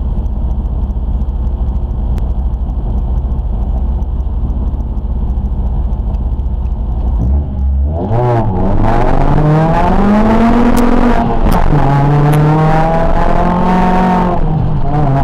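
Peugeot 206 1.6 16v rally car's four-cylinder engine, heard from inside the cabin, idling steadily, then launching about eight seconds in and revving hard up through the gears. The pitch climbs, drops at a gear change, climbs again and drops at a second change near the end.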